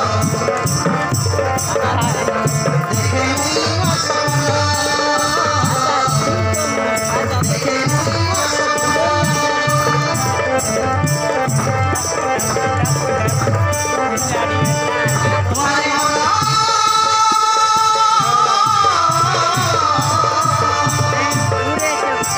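Loud Indian folk dance music for a stage drama: a drum keeps a steady beat, a high rattling percussion ticks along in time, and a melody runs over them in long held notes.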